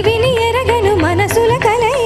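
A girl singing into a microphone, a high melody whose pitch winds up and down in constant ornaments, over instrumental backing with steady low tones and percussion strokes.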